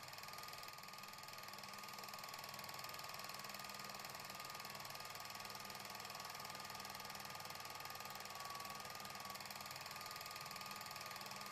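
Film projector running: a steady, rapid mechanical clatter of the film-advance mechanism, with a faint steady tone underneath.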